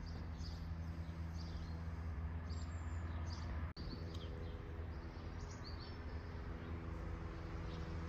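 Small birds chirping on and off, short high calls, over a steady low background hum. The sound briefly drops out about a third of the way in.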